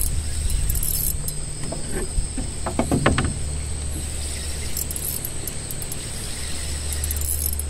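Steady low hum of a small boat engine running, with a thin steady insect whine high above it. About three seconds in there is a quick run of clicks and knocks.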